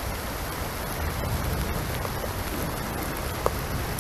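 Pouring rain falling steadily, a continuous hiss of drops.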